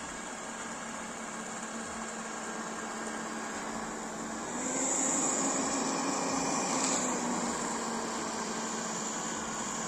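Xiaomi Mi Robot Vacuum-Mop Essential running, a steady motor hum and airflow hiss with a high whine, louder for a couple of seconds about halfway through.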